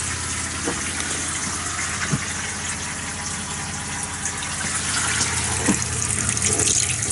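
Motorhome freshwater pump running with a steady hum while water runs from the kitchen tap into a steel sink, as air is being pushed out of the water system. A few light knocks come through.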